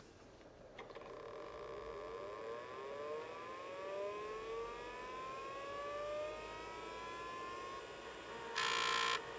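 Miniscribe 3425 5.25-inch MFM hard drive powering up: a click about a second in, then its spindle motor spinning up with a whine that rises slowly in pitch for several seconds. Near the end comes a loud, rough buzzing burst lasting about half a second.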